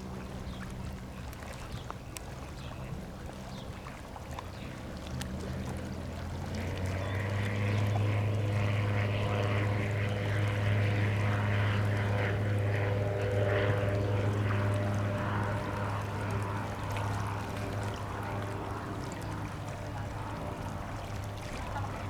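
Czech Sport PS-28 Cruiser light aircraft, its propeller and Rotax 912 four-cylinder engine droning steadily as it flies past. The drone grows louder about a quarter of the way in, holds at its loudest for several seconds, then slowly fades.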